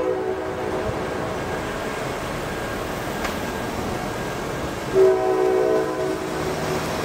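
CSX diesel freight locomotive sounding its air horn, several notes at once: the end of one blast fades about a second in, and a second blast of about a second and a half starts about five seconds in. Between the blasts the locomotive's diesel engine and train run on steadily.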